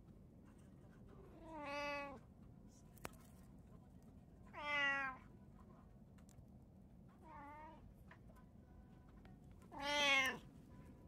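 Domestic cat meowing four times, each call about half a second to a second long and spaced roughly three seconds apart; the third call is fainter than the others.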